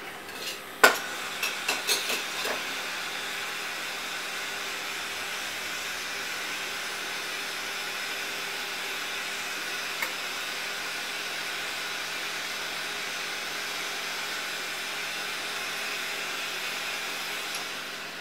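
Gas burner of a glassblowing glory hole running with a steady hiss while the neck of a glass vessel is reheated (flashed) in it. A sharp click and a few knocks come in the first couple of seconds, and the hiss drops back shortly before the end.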